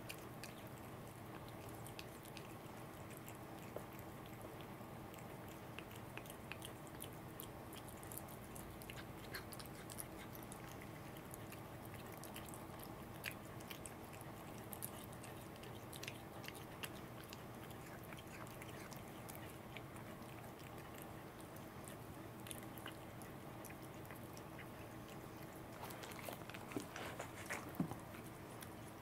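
Cat chewing and biting a piece of salmon held in fingers: faint small wet clicks and smacks scattered throughout, coming quicker and louder near the end.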